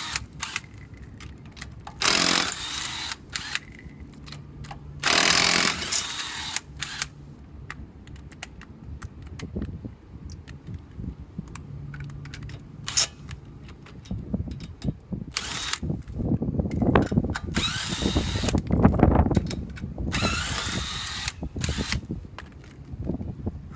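Cordless impact wrench hammering a car's wheel lug nuts loose in several bursts of a second or two, with small clicks and knocks between the bursts.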